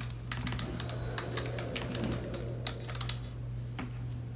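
Typing on a computer keyboard: quick, irregular key clicks that thin out near the end, over a steady low hum.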